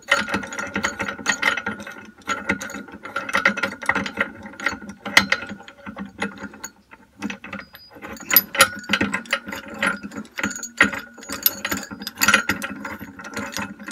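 A steel nut spun off a long threaded bolt by hand, with irregular metallic clicking and clinking as the thread, washer and large socket of a homemade bush puller rattle against each other.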